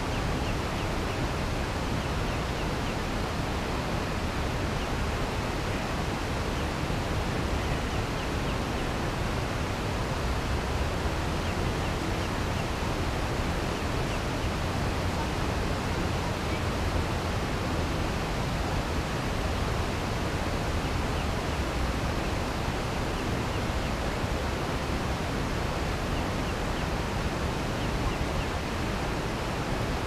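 Steady outdoor nature ambience: an even, unbroken rushing noise with no distinct calls or events.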